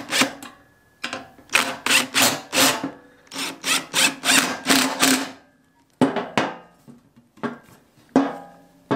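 Cordless impact driver hammering in quick pulses as it runs down worm-drive hose clamps, in two runs that stop about five seconds in. A few separate knocks follow near the end.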